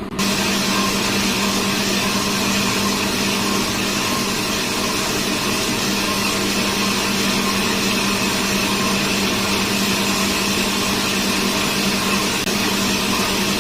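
CNC boring lathe running steadily: a constant low hum under an even, hissing machining noise.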